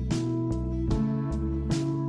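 Instrumental background music: a strummed acoustic guitar over sustained bass notes, with evenly spaced strums.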